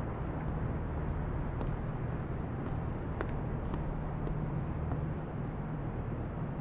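Steady night chorus of crickets with a low hum underneath, and a few faint taps.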